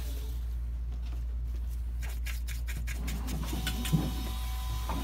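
Steady low electrical hum at the repair bench, with scattered small clicks and handling sounds from about two seconds in and one sharper knock near the end.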